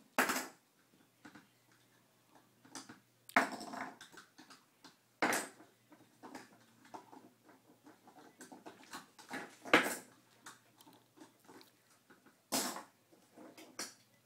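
Plastic Beyblade spinning tops clattering and knocking as they are picked up and handled: scattered clicks and knocks, about five louder ones with the loudest about ten seconds in.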